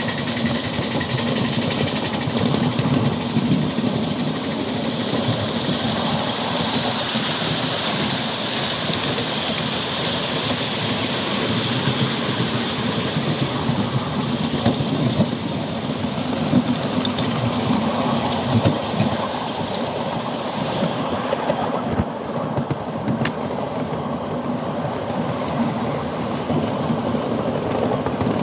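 Ride-on miniature live-steam train under way, with the steady running noise of the cars rolling along the track. The high hiss thins out about three-quarters of the way through.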